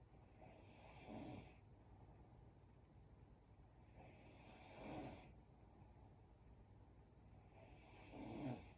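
A sleeping woman snoring faintly: three slow breaths, about three and a half seconds apart, each swelling into a short low snore at its end.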